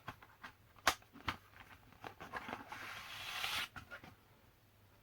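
Handling of a packaged bandana being opened: a couple of sharp clicks, then about a second of rustling from the packaging or cloth, then quiet.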